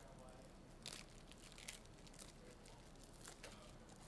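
Faint crinkling and rustling of plastic packaging as card holders are handled, with a few short, light crackles.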